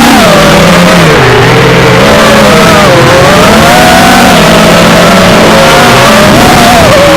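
Electric motors and propellers of a Wizard X220 FPV quadcopter whining in flight, their pitch rising and falling with the throttle, over a loud rush of wind and propeller wash.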